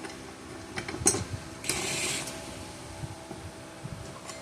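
Light clicks and knocks of metal parts being handled while a new blade is fitted to the underside of a walk-behind mower, the sharpest knock about a second in, with a short scrape about two seconds in.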